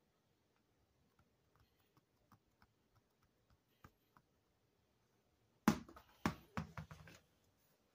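A small ball thrown onto a hard wooden-look floor: one sharp hit a little under six seconds in, then four or five quicker, lighter bounces. Faint scattered clicks come before it.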